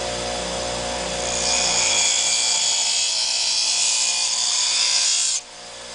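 Motor-driven sharpening wheel running with a steady hum while a dull knife's edge is held against it, giving a loud steady grinding hiss from about a second and a half in that cuts off suddenly near the end.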